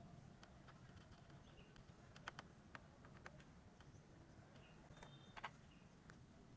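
Near silence: a faint low hum with a few soft, scattered clicks and taps, the loudest a cluster a little past two seconds in and another about five seconds in.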